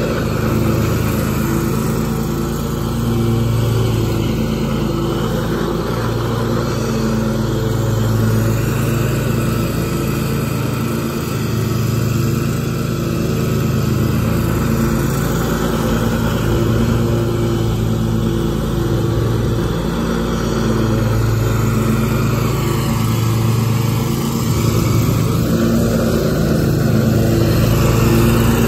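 Scag Tiger Cat II zero-turn mower running steadily while mowing grass, its engine and cutting deck making one continuous drone that gets a little louder near the end as the mower comes close.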